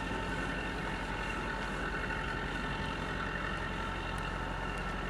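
Natural gas compressor station running with a steady, unchanging drone of several held tones over a low hum.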